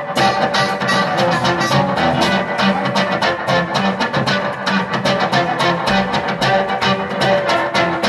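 Electric blues band playing live: an amplified harmonica blown into a cupped microphone plays sustained, wailing notes over electric guitar and a plucked upright double bass, with a steady beat throughout.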